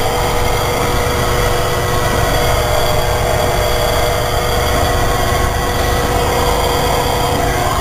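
Steady engine and road noise heard from inside a moving vehicle on a wet highway, with a low rumble and a constant hum.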